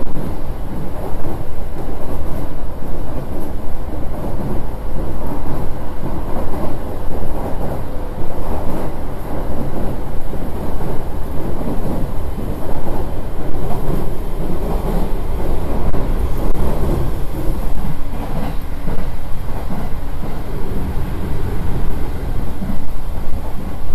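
Running noise of a JR East E231-800 series commuter train at speed (about 85 to 90 km/h), heard inside the passenger car: a steady, loud rumble of wheels on the rails.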